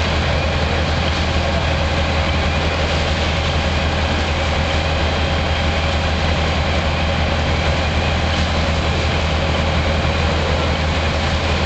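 A heavy engine running steadily, giving a loud, constant low rumble with a faint steady hum above it.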